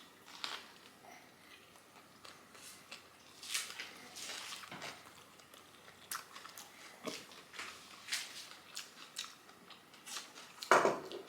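A person biting and chewing a kani salad rice paper wrap close to the microphone: irregular wet mouth clicks and smacks, with one louder sound near the end.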